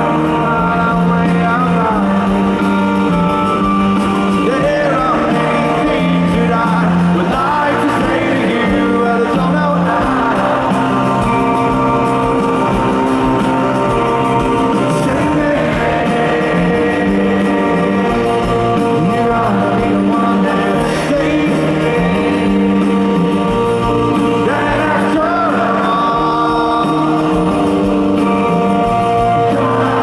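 Live rock song: a man singing the lead vocal over a full band, recorded from the audience.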